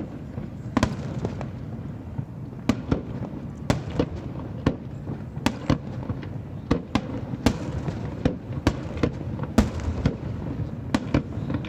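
Fireworks display: aerial shells bursting in a string of sharp bangs at irregular intervals, one or two a second, over a steady low background rumble.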